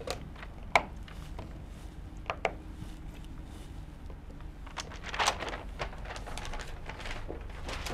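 Handling of paper picture cards: a few light clicks and taps as the cards are taken down from a chart, then paper rustling about five seconds in.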